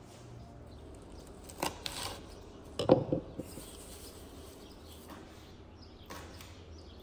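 Fresh herbs handled on a wooden cutting board: leaves rustling, short knocks on the board, the loudest about three seconds in, and a few light knife taps near the end.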